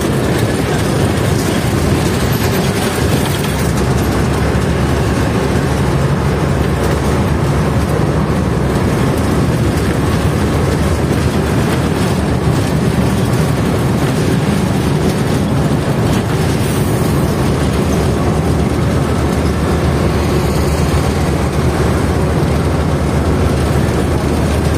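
Steady engine and road noise heard from inside the cabin of a moving bus.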